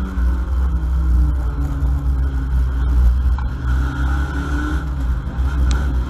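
Ford Mondeo race car's engine heard from inside the stripped cabin, running hard under changing throttle, with a heavy low rumble and an engine note that rises and falls.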